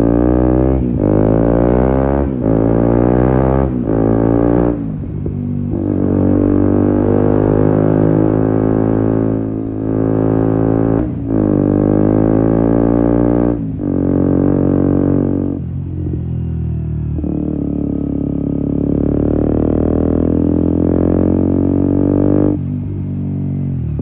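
KTM Duke 125's single-cylinder four-stroke engine through an Akrapovic exhaust, accelerating hard with the revs climbing and cutting off in quick upshifts several times in the first few seconds. It keeps pulling with a few more shifts, drops in revs partway through, cruises at steady revs, and revs up again near the end.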